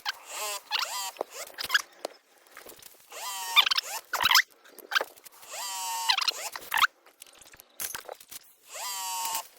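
Pressure switch adjustment screw on a softwash pump being turned in, squeaking in about five short strokes that slide in pitch, to raise the pressure at which the switch cuts off the pump.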